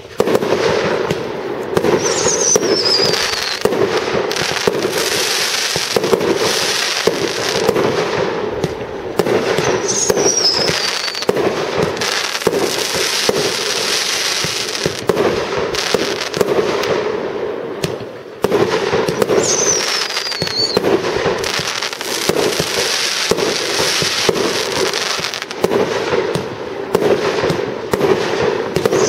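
Fireworks display: a dense, unbroken barrage of shell bursts and crackle. A high falling whistle cuts through about every nine seconds.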